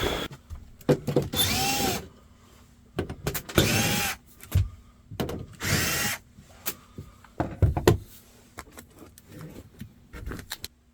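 Cordless drill/driver spinning out the screws of a furnace's access panel in several short runs, each speeding up and slowing down, with clicks and rattles of the panel and screws in between.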